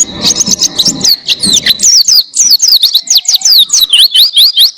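White-eye (pleci) in full song: a long, fast run of quick, high, clear notes, most of them sweeping downward, with a few rising notes near the end.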